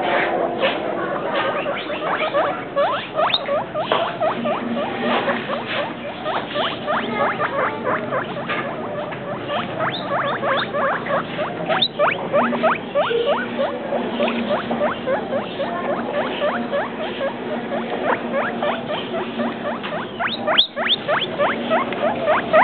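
Guinea pigs squeaking: quick, short squeaks repeated several times a second.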